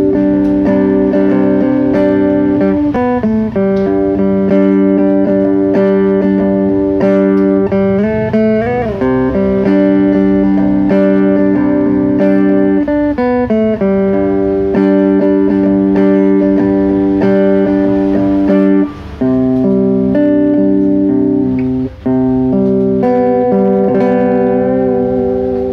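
APX-model cutaway acoustic-electric guitar played fingerstyle: a slow instrumental of ringing chords that change every second or two, with a few sliding notes and two brief gaps.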